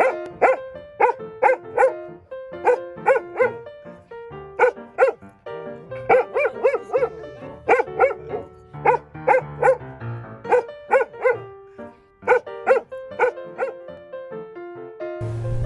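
Dog barking repeatedly, in quick runs of two to four sharp barks, over background music.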